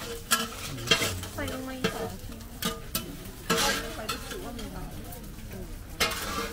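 Metal utensils clattering and scraping against a pan or wok in irregular strokes, with faint voices in the background.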